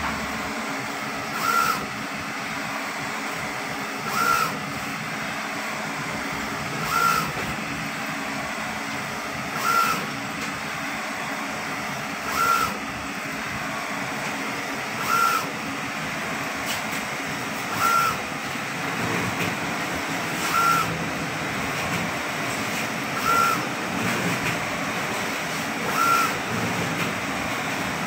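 UV flatbed printer printing on acrylic: a steady running hum, with a short whirring burst about every two and three-quarter seconds as the print head carriage makes each pass.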